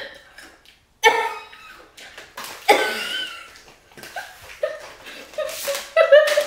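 A person's wordless vocal sounds: short coughs and chuckles, then a run of short hummed "mm" sounds from about four and a half seconds in, a reaction to the heat of very spicy Takis Fuego chips.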